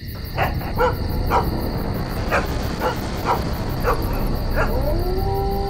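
A dog barking in short, sharp calls roughly twice a second over a constant low rumble. Near the end a long, steady howl rises in and holds.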